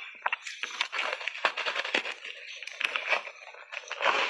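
Close-miked chewing of a bite of refrozen ice coated in matcha powder: a quick, uneven run of sharp cracks and crunches as the ice breaks between the teeth, thickening into a denser crunch near the end.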